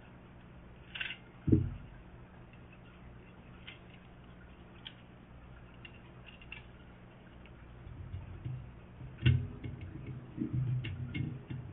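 Small metal clicks and knocks from handling a Thompson stick magazine's steel body, base plate and spring, with one dull thump about a second and a half in. In the last few seconds the clicks come thicker, with one sharp click, as the base of the magazine is worked against its spring.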